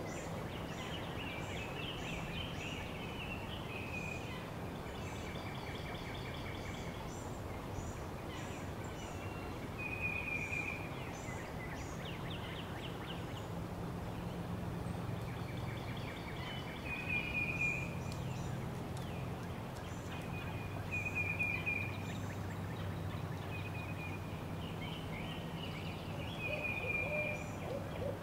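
Outdoor bird chorus: many short, high chirps and a recurring warbling call that rises to a brief peak every few seconds, over a steady low hum.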